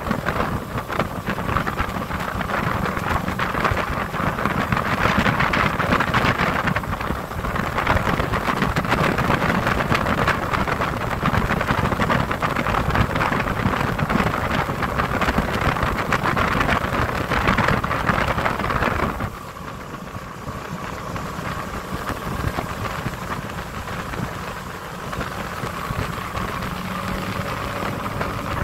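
Wind buffeting the microphone over the running motor of a small boat underway. About two-thirds of the way through the wind noise drops away, leaving the steady hum of the motor.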